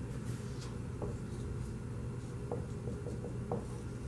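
Dry-erase marker writing on a whiteboard, with short scratchy strokes and a few light ticks. It follows a last few swipes of the eraser near the start, over a steady low hum.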